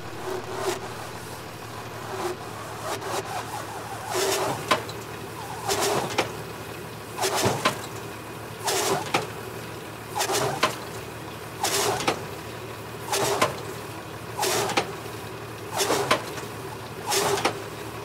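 Tanco Autowrap bale wrapper turning a round bale on its turntable as stretched plastic film feeds onto it, a swishing noise coming round about every second and a half with each turn. A tractor idles under it.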